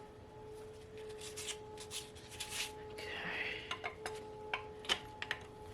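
Light metallic clicks and clinks of hand tools on the 5.3 V8's bottom-end caps and bolts, with a short scrape about three seconds in, over a faint steady hum.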